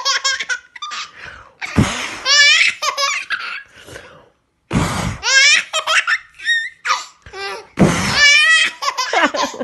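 Baby girl laughing in about three bouts of high, wavering belly laughter. Each bout is set off by a short puff of breath as a leaf is blown off a hand toward her.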